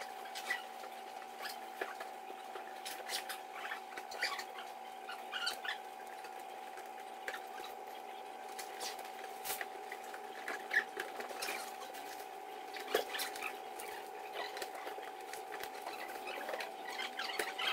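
Scattered clicks, rattles and short high squeaks of a folding boat canopy being put together (frame bows, fasteners and zips), over a steady high hum.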